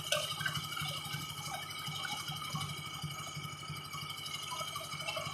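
Concrete mixer machine's engine running steadily with a fast, even low chugging and a constant high whine.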